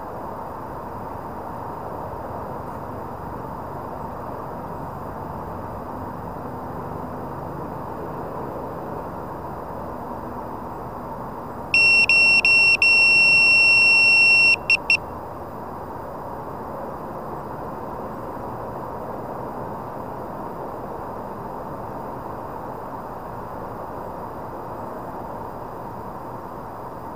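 A loud, high electronic beep over a steady rushing noise. It starts about twelve seconds in, sounds for about three seconds with a few brief breaks, and ends with two short beeps.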